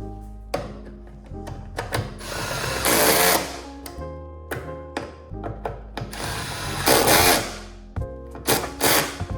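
Background music with a steady beat, over which a small power tool runs twice, each run building for about a second and a half before stopping.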